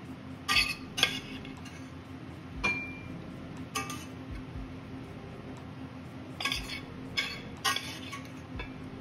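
Metal serving spoon scraping and clinking against a stainless steel sauté pan as stir-fried broccoli and tofu are spooned out into a bowl: about seven sharp, irregular clinks over a steady low hum.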